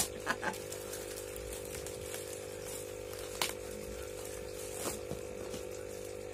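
Steady hum of an aquarium air pump (aerator), with a few light clicks of items being handled.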